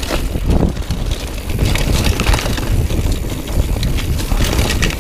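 Mountain bike rolling fast down a rocky gravel trail: wind rumbling on the microphone over the tyres crunching on loose stones and the bike rattling.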